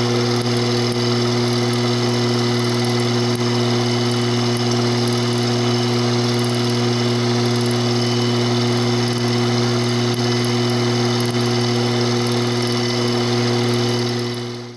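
Sherline mini mill running steadily, its motor and spindle humming while an end mill cuts a slot in a metal block.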